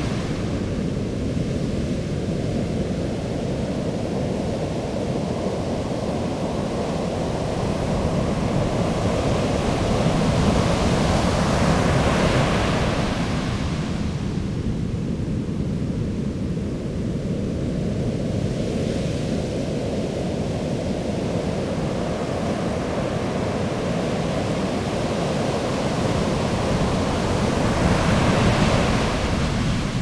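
Ocean surf breaking and washing up a sandy beach: a steady rushing wash that swells louder and brighter as bigger waves break, about ten seconds in and again near the end.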